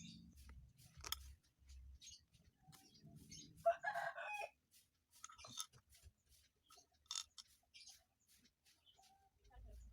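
Faint, scattered light clicks and taps, with one short animal call about four seconds in as the loudest sound.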